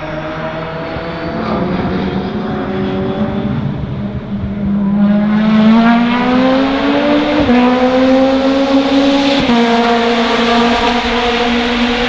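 Supercharged Toyota 2ZZ-GE 1.8-litre four-cylinder of a Lotus 2-11 race car accelerating hard, its pitch climbing and dropping sharply at two upshifts in the second half. The sound gets louder about halfway through as the car comes past.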